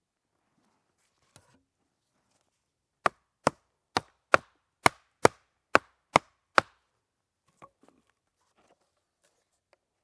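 Wood knocking on wood: nine sharp, evenly spaced knocks at about two and a half a second, as the pole legs of a small log stool are knocked home into the bored holes of its sawn log-disc seat.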